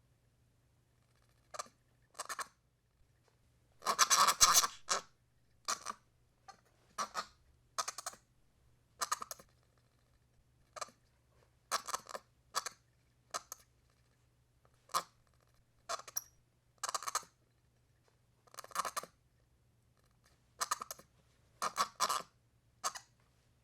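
Baby monkey chirping excitedly in short separate bursts, roughly one a second with brief pauses, the loudest run of chirps about four seconds in.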